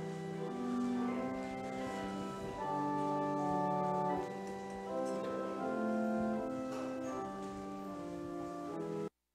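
Organ playing slow, held chords as a closing postlude; the music cuts off abruptly near the end.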